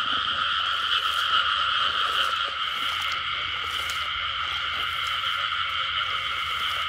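Dense chorus of many frogs calling at once in a flooded paddy field: a continuous, even mass of croaking with no single caller standing out.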